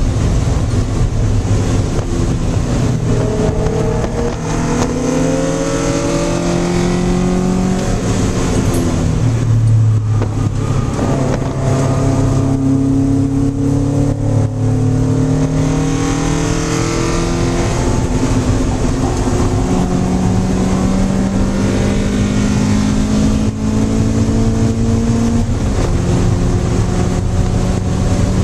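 High-compression naturally aspirated 2.0-litre four-cylinder Miata engine with individual throttle bodies, heard from inside the car at speed on track: revs climb repeatedly and drop back at shifts and under braking, over a constant rush of wind and road noise.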